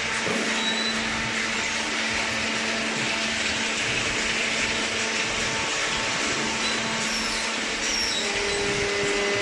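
Steady machine noise: a motor running with an even hiss and a faint hum.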